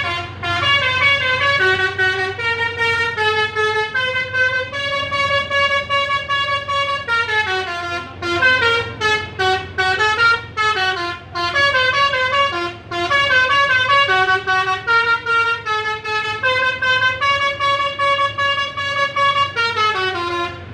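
Bus telolet horn (Basuri multi-tone horn) playing a long melody of quick stepped notes, rising and falling without a break, stopping right at the end.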